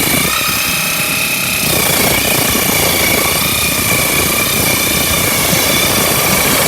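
Table saw running under load, its blade ripping a thin strip off a thick board of wood: a steady high whine over dense cutting noise, with a lower whine that fades out a couple of seconds in.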